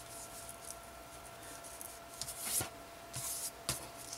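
Fingers handling and pressing a small grosgrain ribbon piece against a paper-covered table: faint rustling and brushing, louder twice past the middle, with two light clicks.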